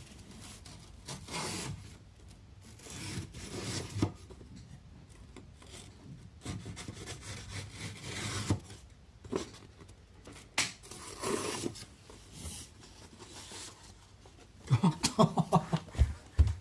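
Rubbing and scraping on wood in short strokes of about a second each, with a sharp click about halfway through and a quick run of knocks near the end.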